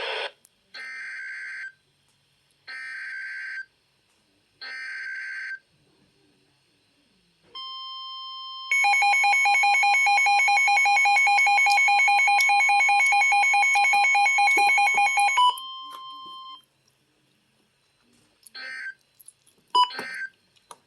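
Emergency Alert System SAME alert tones: three screechy one-second data bursts of the header, then a steady alert tone joined by a louder, rapidly pulsing tone for about seven seconds, then three short end-of-message bursts near the end.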